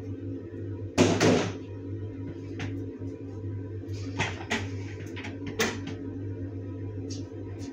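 A small bin being handled and set into a ceramic bathroom sink: a loud clatter about a second in, then a few short, sharp knocks between about four and six seconds in, over a steady low hum.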